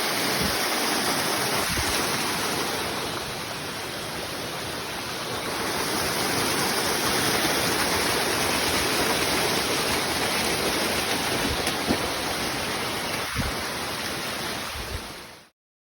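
Waterfall rushing: a steady wash of falling water that cuts off suddenly near the end.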